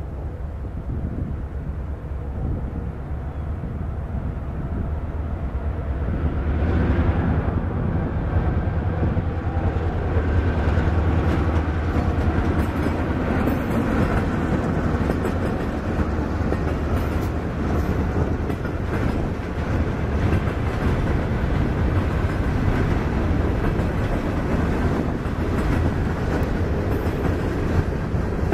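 Norfolk Southern freight train passing close by: the locomotive's diesel grows louder as it approaches and is loudest about seven seconds in. Tank cars and covered hopper cars then roll past with a steady run of wheel clicks over the rail joints.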